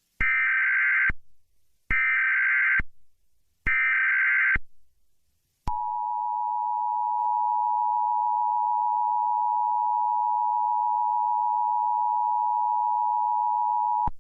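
Emergency Alert System header: three short bursts of SAME digital data tones, each just under a second, then the two-tone EAS attention signal starting about six seconds in and held steady for about eight seconds.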